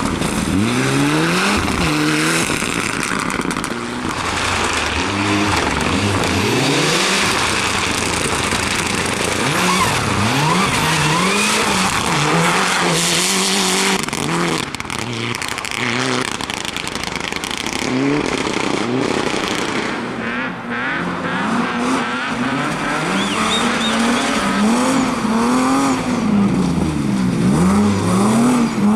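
Rally car engine revving hard, its pitch rising and falling again and again through gear changes and lifts off the throttle.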